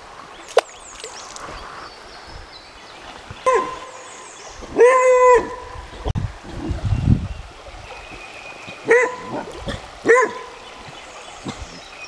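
A dog barking four times, the second bark longer than the others, over the steady rush of stream water.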